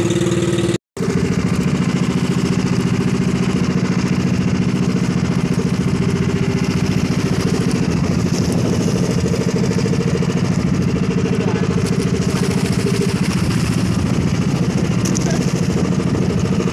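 A small fishing boat's engine runs steadily with a fast, even firing beat. The audio cuts out for an instant just under a second in.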